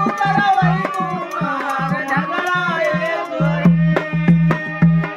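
Men singing a song to a dholak and harmonium: the dholak plays a quick, steady rhythm of deep bass strokes and sharp slaps, while the harmonium holds steady notes under the voices.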